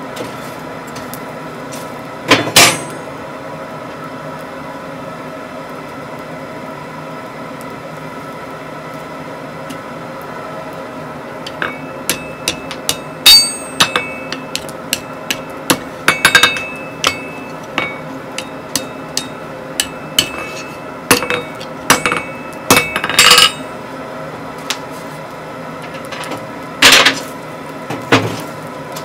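Hand hammer striking a hot steel bar on a steel anvil to bend it: one hard blow early, then a long irregular run of strikes, some leaving the anvil ringing, and two more hard blows near the end. A steady hum runs underneath.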